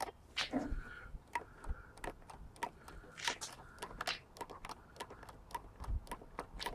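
Primer bulb on an inverter generator being squeezed over and over, giving irregular short clicks as it pumps petrol through the fuel filter to fill the carburettor.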